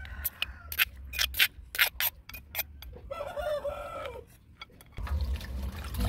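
A rooster crows once, about three seconds in, one call lasting just over a second that drops at the end. Before it comes a quick run of sharp clicks and taps.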